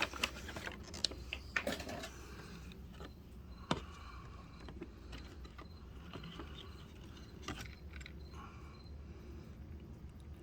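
Plastic packaging and small parts of an RC helicopter kit being handled: scattered light clicks and rustles, with one sharper click about four seconds in.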